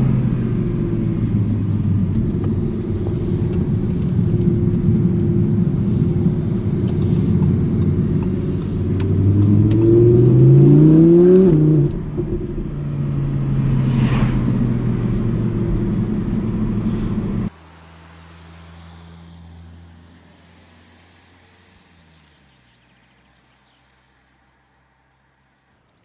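Audi R8 V10 Plus's 5.2-litre naturally aspirated V10 running at steady revs, then rising sharply in pitch under acceleration about ten seconds in and falling back. About two-thirds of the way through the sound drops suddenly to a much quieter engine note that fades away.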